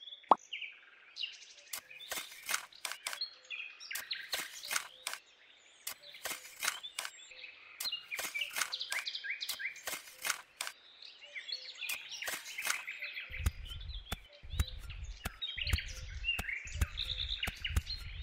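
Birds chirping throughout, over short scratchy strokes of a miniature metal hoe through loose sand. In the second half, low thuds join the scraping.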